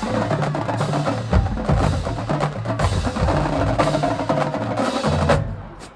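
High school marching drumline playing a fast, dense percussion cadence, with rapid drum strikes over stepping low drum notes, cutting off sharply near the end.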